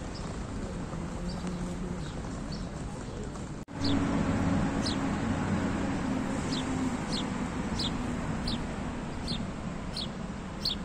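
A small bird chirping repeatedly in short, high, falling notes, about two a second, over a steady low background hum. The sound cuts out for an instant a little over a third of the way in, and the background comes back louder.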